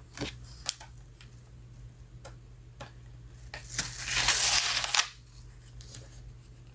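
Stiff photobook pages crackling as they are handled, with a few sharp crackles and then a loud rustling page turn about halfway through. The crackling is the sign of a binding that hasn't been opened in a long time.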